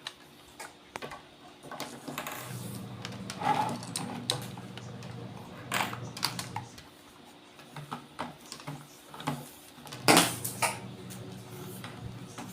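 Scattered small clicks and knocks of a multimeter, its test leads and a battery being handled, the loudest about ten seconds in.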